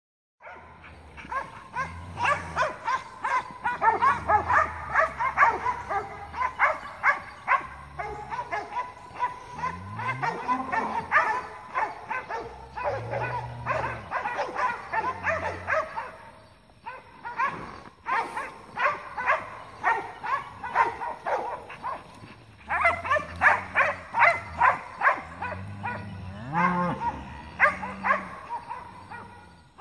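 A bunched herd of cattle mooing and bawling repeatedly while cur dogs bay them, with a steady run of short, sharp yelps several times a second over the calls and a brief lull about two-thirds of the way through.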